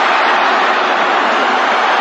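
Steady noise of a large football stadium crowd, an even din with no single voice or impact standing out.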